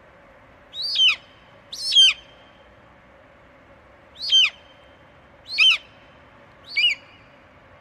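An animal calling five times, unevenly spaced: short, high-pitched calls that each fall steeply in pitch.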